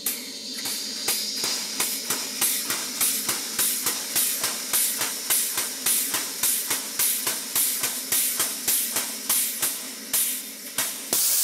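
Model Southworth (Weir-type) steam pump running fast at raised steam pressure, its exhaust puffing steam about three times a second over the steady roar of the gas burner. About eleven seconds in the puffing stops and a loud, steady hiss of escaping steam takes over: the silicone rubber steam hose has come off the threaded end of the tap.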